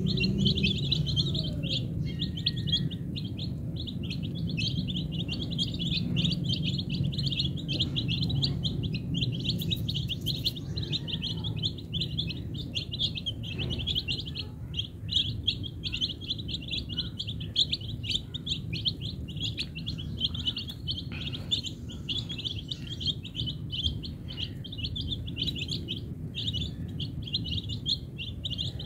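A flock of young domestic chicks peeping without a break, a dense chorus of short, high chirps.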